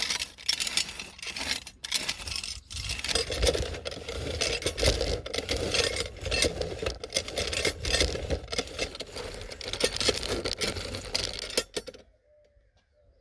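Hand garden tiller's rotating metal teeth worked through soil: an irregular scraping, crunching and metallic clinking that stops abruptly near the end.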